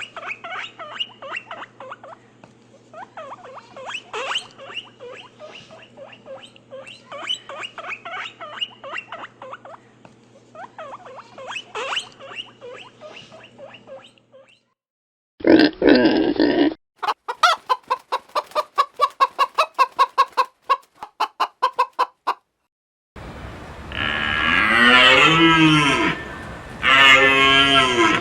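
Chickens clucking, many short calls overlapping for about 14 seconds. After a pause comes a brief loud animal call, then a rapid train of short calls for about five seconds. From about 23 seconds in there are long, drawn-out cattle moos.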